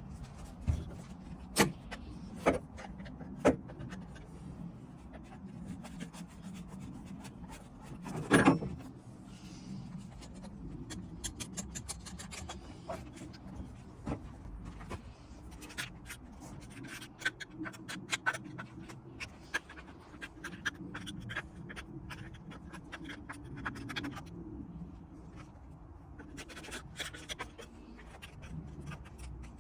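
Hands and tools working on a chainsaw: scattered clicks, knocks and rubbing of metal and plastic parts being handled, with one louder knock about eight seconds in and a quick run of small clicks in the second half.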